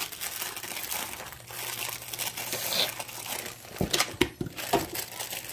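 Paper and plastic packaging crinkling and tearing as a box of yellow cake mix is opened, with a few sharp knocks about four seconds in.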